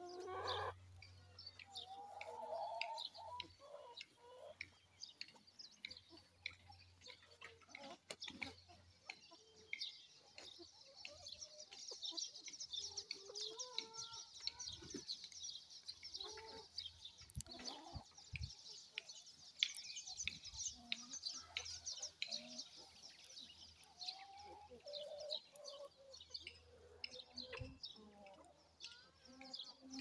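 Free-range Sasso chickens clucking softly while they forage, with a dense high chirping from about a third of the way in until past two-thirds.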